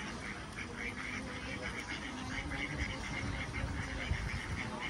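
Ducks quacking in a quick repeated series, about four or five calls a second, growing stronger in the second half, with a low rumble near the end.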